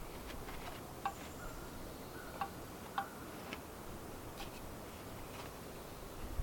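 A few faint, sharp clicks and taps, about five, scattered irregularly over a quiet background, with brief faint high tones among them.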